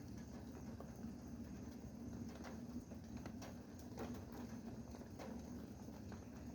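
Rain dripping and pattering, with irregular single drops tapping sharply on a hard surface, some louder than others, over a steady low hum.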